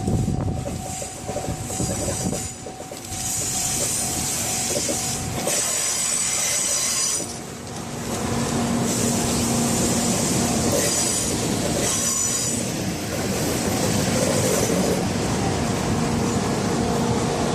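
A Shinkansen train running along the track, its wheels squealing on the rails in high, thin squeals that come and go over a continuous rolling rumble.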